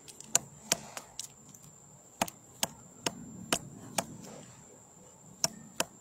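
Black woodpecker chiselling into a tree trunk: about ten sharp, irregularly spaced pecks into the wood, with a pause of over a second before the last two.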